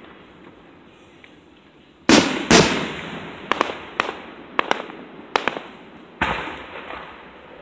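Aerial fireworks shells bursting. Two heavy booms come about two seconds in, then a scatter of sharper cracks, then another boom about six seconds in, each trailing off.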